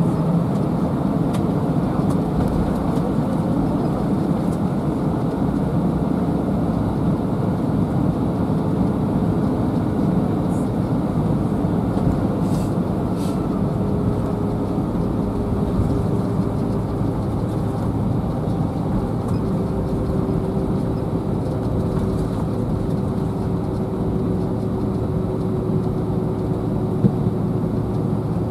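Steady cabin noise inside a jet airliner taxiing, its jet engines running at low taxi thrust, with a faint steady whine over the low rumble.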